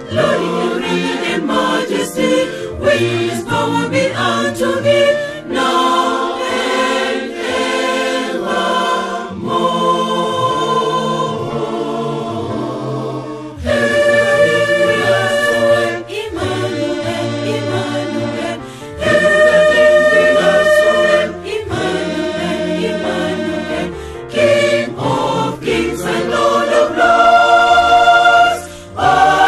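Mixed choir of men's and women's voices singing a hymn, in phrases of a few seconds with brief breaks between them.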